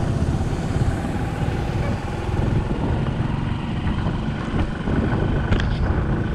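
A road vehicle running, with heavy wind rumble on the microphone.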